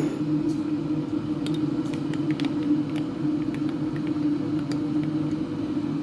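Steady low rumble and hum of a car heard from inside the cabin while driving, with a few faint ticks and clicks.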